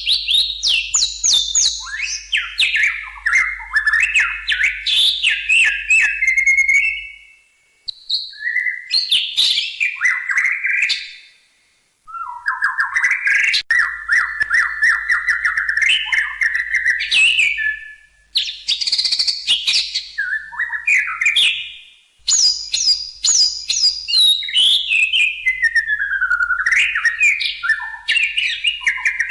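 White-rumped shama singing: long, varied phrases of rapid whistles, trills and sliding notes, broken by short pauses every few seconds.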